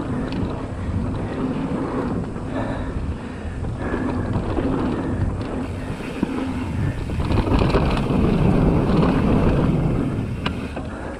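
Wind buffeting the camera microphone as a mountain bike rolls down a dry dirt and gravel trail, with tyre noise on the dirt and a few short clicks and rattles from the bike over bumps. It gets louder for a few seconds past the middle as speed picks up.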